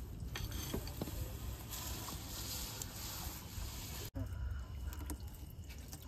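Wet fine-mesh fishing net being hauled over a boat's side and shaken, water splashing and dripping off it, with a few light knocks in the first second.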